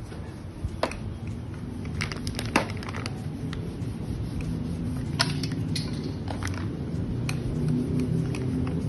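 Play-Doh toys being handled: scattered light clicks, taps and crinkles of small plastic pieces, with the sharpest knocks about two and a half seconds in and again about five seconds in.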